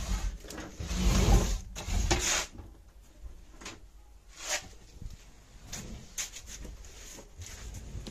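Low rumbling handling noise for the first two seconds or so, then scattered light knocks, clicks and rustles.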